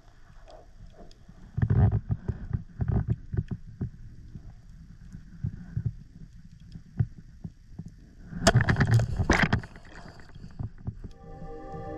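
Shallow water splashing and sloshing in irregular bursts as someone wades through it, loudest about two seconds in and again around eight to nine seconds. Music comes in near the end.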